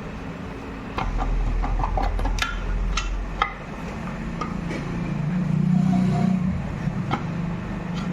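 Metal motorcycle parts and tools clinking and knocking during dismantling: a quick run of sharp clinks early on, another near the end, over a steady low hum. A low rumble swells and fades midway.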